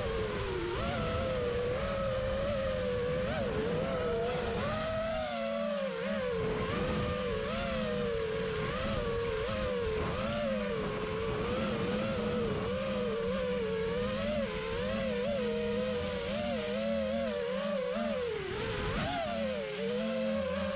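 6S FPV quadcopter's brushless motors and propellers whining in flight, the pitch constantly rising and falling as the throttle changes.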